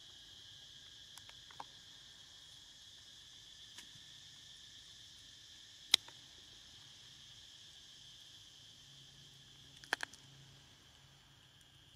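Steady, high-pitched drone of insects, with one sharp click about halfway through and a short cluster of clicks near the end.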